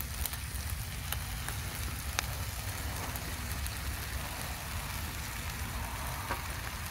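Chicken thighs sizzling in a cast-iron skillet over a propane camp-stove burner, a steady crackling hiss over a low rumble. A few light clicks come from metal tongs as vegetables are piled onto the meat.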